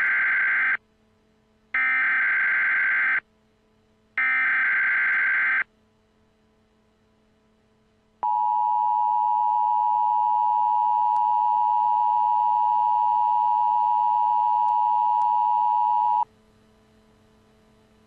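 Emergency Alert System tones. Three short screeching bursts of SAME digital header data, which encode a severe thunderstorm warning, are followed by the steady EAS attention tone, held for about eight seconds before it cuts off.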